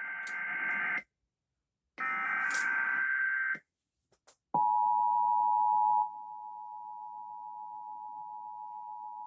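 Emergency Alert System SAME header data bursts: one ends about a second in and another runs from about two seconds in for about a second and a half. About four and a half seconds in, the EAS two-tone attention signal begins, a steady pair of tones that is loud at first and drops in level about a second and a half later.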